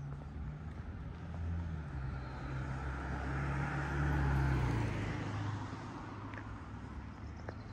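A car driving past, its engine hum and tyre noise building to a peak about four seconds in and then fading away.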